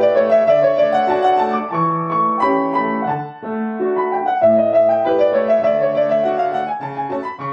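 Background piano music: a melody over a repeating pattern of low notes, easing briefly a little over three seconds in before picking up again.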